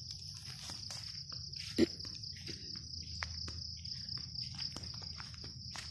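Steady high-pitched insect drone, like crickets, with the footsteps and rustle of someone walking through long grass and weeds, and one louder step or snap about two seconds in.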